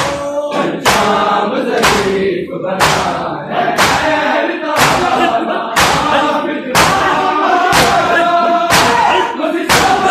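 A crowd of men beating their chests in unison in matam, a sharp slap about once a second. Over the slaps, men's voices chant a mourning lament in chorus.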